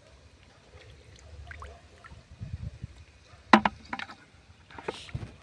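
Wading through shallow pond water: sloshing steps, with a few sharp splashes in the second half, the loudest about three and a half seconds in.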